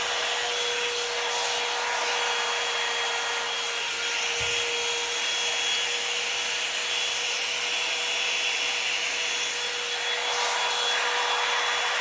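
Revlon 2-in-1 hot-air brush dryer running steadily, blowing air with a constant motor hum, as the brush is drawn through wet hair.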